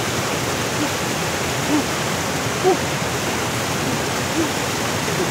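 Steady rush of water falling from a small waterfall into a fast stream, with a few faint short blips over it.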